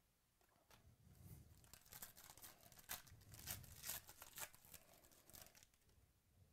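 A foil trading-card pack wrapper being torn open and crinkled in the hands: a run of crackling rips that starts about a second in and lasts several seconds.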